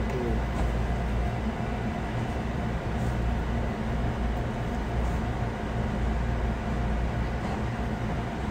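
Steady low rumble and hum of fast-food kitchen machinery, with a few faint clicks.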